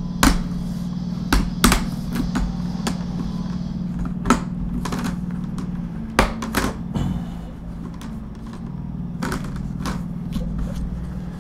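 Plastic laptop display bezel being pried off by hand: a dozen or so sharp, irregular clicks and snaps as its retaining clips release. A steady low hum runs underneath.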